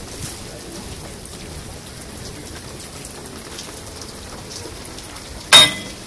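Steady rain pattering on the lake and the surrounding surfaces. About five and a half seconds in comes one sharp, loud clank with a brief ring.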